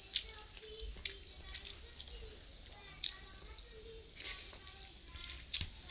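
Close-up wet eating sounds: mouth smacks and chewing clicks from someone eating rice with bottle gourd (lau) curry by hand, with fingers gathering the food on a steel plate. The clicks come irregularly, a few each second.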